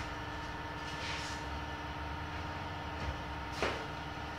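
Steady machine hum from a running electric motor, a low drone with a couple of steady tones over it, and one faint short tick about three and a half seconds in.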